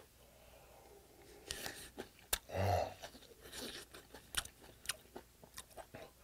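Close-miked chewing of rice soaked in eel-bone broth, with scattered small mouth clicks and one brief louder mouth sound about two and a half seconds in.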